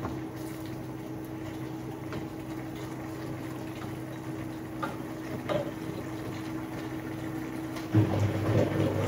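A saucepan of pork and leaves bubbling on a gas stove, stirred with a spoon that clinks lightly against the pot a few times. The sound grows louder about eight seconds in.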